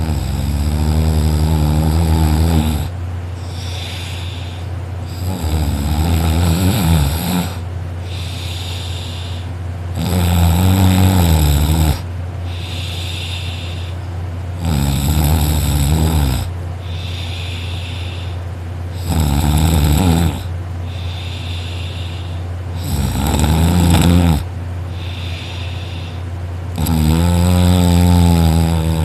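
A person snoring hard and loud in deep sleep: seven long, rough, pitched snores about every four seconds. A steady low hum runs underneath.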